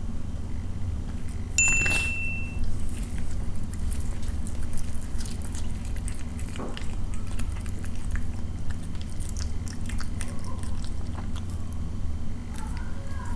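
A cat biting and chewing pieces of cooked meat, many small clicks of its chewing over a steady low hum. About a second and a half in, a short high ding rings for about a second.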